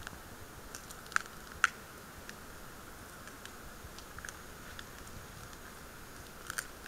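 Faint steady hiss with scattered sharp clicks: two loud clicks about half a second apart just over a second in, and another close pair near the end.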